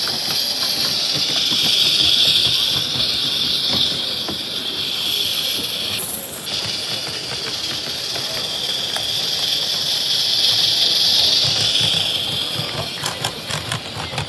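Gas-fired 16mm-scale narrow gauge live steam model locomotive running past close by, its steam hissing steadily. Near the end its wagons follow with a quick run of wheel clicks on the track.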